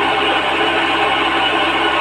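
Electric pump motor of a 12-volt battery sprayer running steadily and noisily. The repairer puts the excess noise down to a worn motor bearing.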